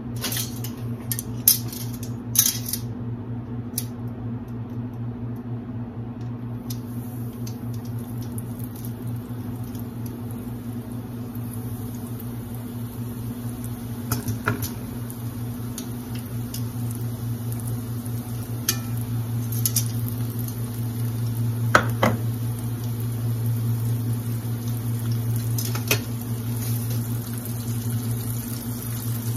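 Battered onion rings frying in hot oil in a cast iron skillet: a steady high sizzle that starts about six seconds in, once the first rings go into the oil. Sharp clinks and knocks from the pan and utensils come through, several in the first few seconds and a few more later, over a constant low hum.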